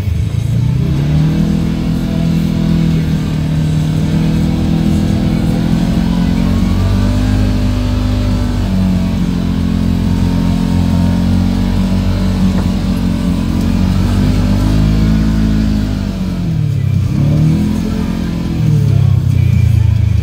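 Off-road vehicle engine revving under load: its pitch rises about a second in, holds fairly steady, then drops sharply and climbs again near the end.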